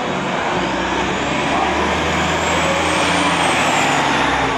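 Road traffic passing close by: a motor coach's engine and a car driving past. The sound swells to its loudest about three to four seconds in, with a faint high tone that rises and then falls as the vehicles go by.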